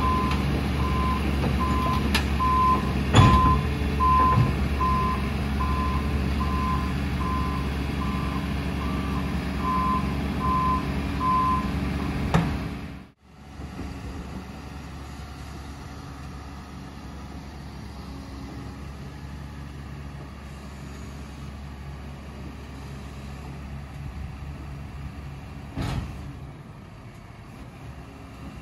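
SANY SY215C crawler excavator's Cummins QSB6.7 diesel running, with its warning alarm beeping about once a second and a few knocks, one loud knock about three seconds in. About thirteen seconds in the sound cuts to the engine running more quietly and steadily.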